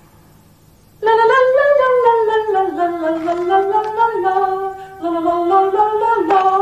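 A single high voice singing a slow, unaccompanied melody of held, gliding notes, starting about a second in after a moment of near quiet, with a brief breath-break near the middle.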